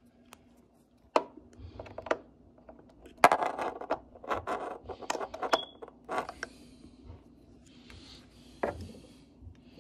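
Cables and plugs being handled and fitted into sockets: scattered clicks and knocks, with a denser clatter about three seconds in.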